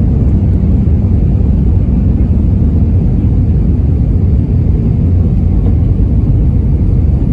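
Airbus A319 cabin noise heard from a window seat by the wing: a steady low rumble of the jet engines and air rushing past the fuselage as the airliner descends on approach.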